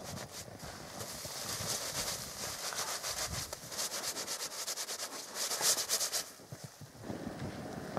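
Fast, repeated brushing and rubbing of a snowsuit as snow shaken down from a pine branch is brushed off, with scratchy strokes several times a second that stop about six seconds in.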